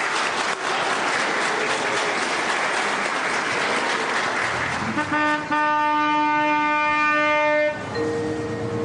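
Congregation applauding, many hands clapping together. About five seconds in, a loud held musical chord comes in over the clapping for nearly three seconds, then softer held tones follow.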